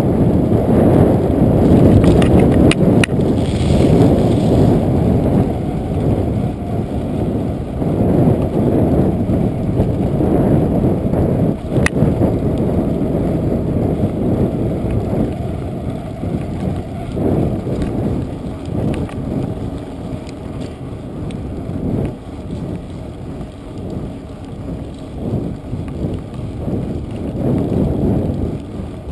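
Wind buffeting the microphone of a camera mounted on a moving bicycle's handlebar, a steady low rumble mixed with tyre noise on asphalt. It is loudest in the first few seconds and eases later, with a few sharp clicks from the bike, one about twelve seconds in.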